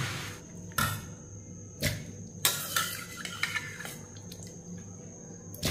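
Stainless steel ladle clinking against a steel pressure-cooker pan and mixer-grinder jar as cooked vegetables are scooped across: several sharp clinks at uneven intervals.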